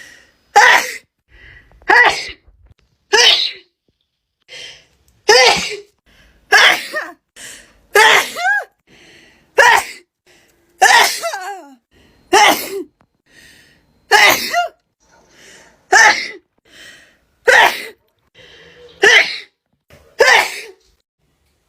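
A girl sneezing over and over in an allergy fit: about fourteen sharp, loud sneezes, one roughly every second and a half.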